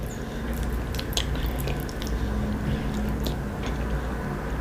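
A person chewing a mouthful of food, with irregular small wet mouth clicks.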